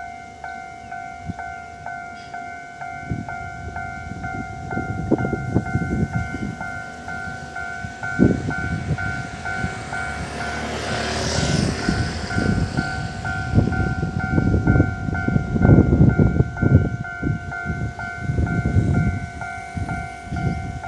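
Railway level-crossing warning bell ringing steadily, a two-tone ding about twice a second. Under it, an irregular low rumble swells and fades, strongest about two thirds of the way through.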